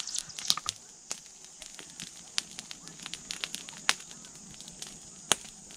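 Small open fire of dry chalaru crackling, with irregular sharp pops, as corn cobs roast in it.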